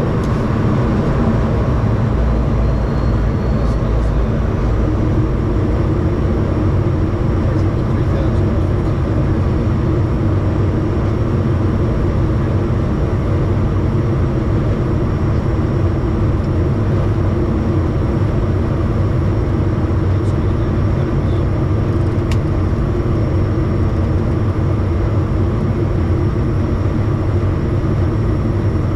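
Bombardier Challenger 350's Honeywell HTF7350 turbofan engines running at a steady setting: an even rushing jet noise with steady hums underneath, holding level throughout.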